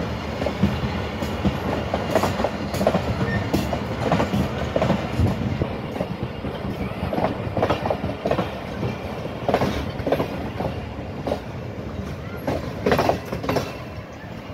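Passenger coaches of the Pakistan Express rolling past as the train pulls out of the station: a steady rumble with the wheels clicking and clattering irregularly over the rail joints.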